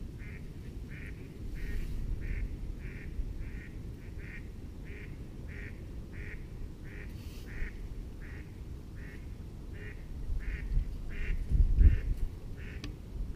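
A bird calling with a steady run of short, evenly spaced notes, about three a second, that never breaks off. Under it runs a low rumble of wind on the microphone, which swells loudest near the end.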